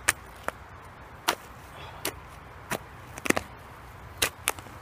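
A short-handled metal digging spade chopping into woodland soil and roots: about nine sharp, irregularly spaced strikes.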